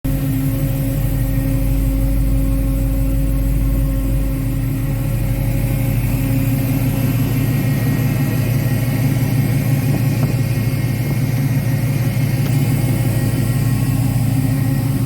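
LS-swapped V8 engine running steadily through its exhaust, a low, even note with no sharp revving.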